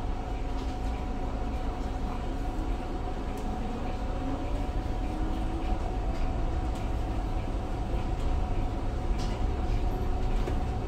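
Cabin noise of a Volvo B5LH hybrid bus under way: a steady low drivetrain rumble and hum, with a whine that rises in pitch from about two seconds in as the bus gathers speed.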